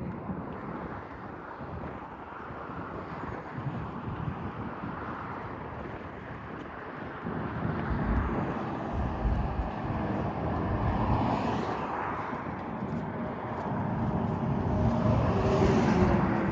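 Outdoor ambience with vehicles going by: a low rumble that swells about seven seconds in and again near the end, over a steady noise haze.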